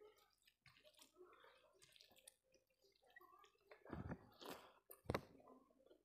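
Fingers squishing rice and curry together on a plate with soft clicks, then a handful taken into the mouth and chewed, with two louder wet mouth sounds about four and five seconds in.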